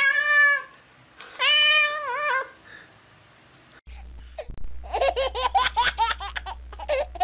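Tabby cat meowing twice, two drawn-out calls with a wavering pitch, while being rubbed. After a cut, high-pitched laughter in quick short bursts over a low hum.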